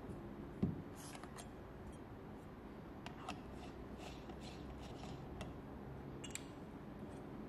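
A dull knock as a metal espresso portafilter is tapped down on a rubber tamping mat. It is followed by a scatter of light metal clicks and scrapes as the dosing funnel is lifted off and a distribution tool is fitted onto the basket of ground coffee.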